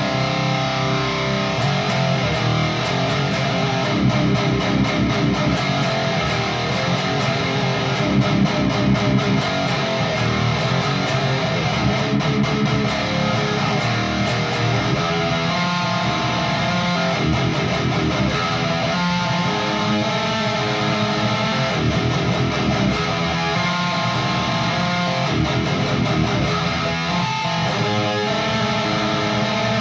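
Electric guitar through a Peavey 6505 II high-gain tube amp, pushed by a single-knob boost/overdrive pedal, playing heavily distorted metal riffs with quick picked chugs.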